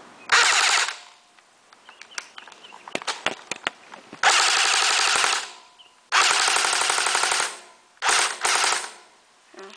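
Cybergun AK-47 electric airsoft gun firing on full auto, its battery not fully charged: a short burst at the start, two longer bursts of about a second each, then two quick bursts near the end, with scattered clicks in between.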